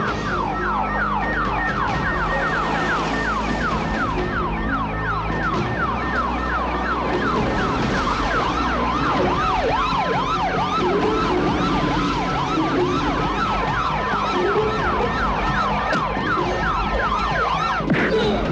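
Several police and ambulance sirens sounding together, rapid repeating up-and-down sweeps overlapping one another.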